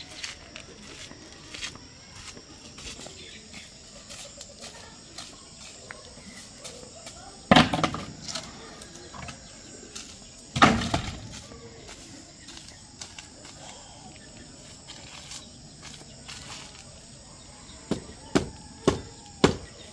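Two loud wooden clatters of old boards on a building site, then four quick claw-hammer blows about half a second apart, over a steady chorus of insects.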